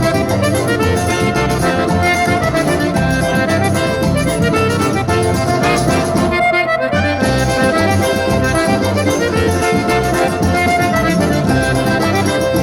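Instrumental forró music led by an accordion, playing continuously with no singing.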